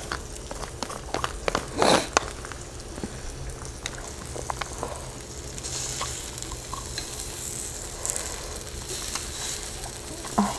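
Marinated pork riblets sizzling on a Brentwood electric indoor grill, a steady high hiss that grows stronger around the middle. Scattered sharp clicks and taps run through it as chopsticks pick food off the grill, with one louder short noise about two seconds in.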